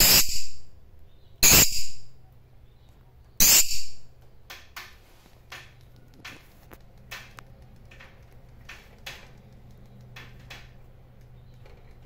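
Rosy-faced lovebird giving three loud, high calls about a second and a half to two seconds apart, then a run of much quieter short chirps.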